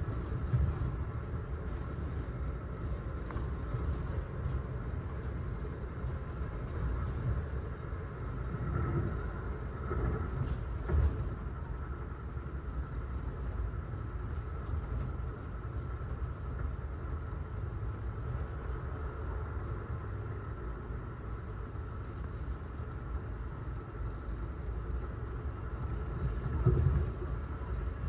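Amtrak Northeast Regional train running along the line, heard from inside an Amfleet passenger coach: a steady rumble of wheels on rail with a faint, steady higher hum. A few louder jolts come through, about a second in, around eleven seconds in and near the end.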